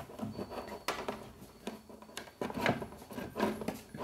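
Irregular scraping, rubbing and light knocks of a power cord being fed through the plastic cabinet of a reverse-osmosis water purifier.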